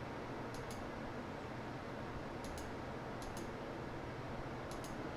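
Computer mouse clicking four times, each a quick two-part click, over a steady low hiss of room noise.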